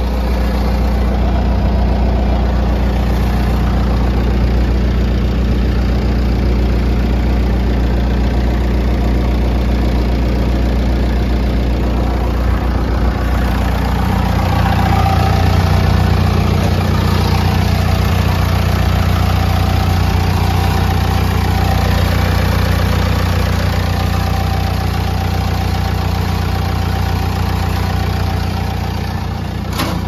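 Diesel engine of a New Holland D95B XLT crawler dozer idling steadily, a low, even hum.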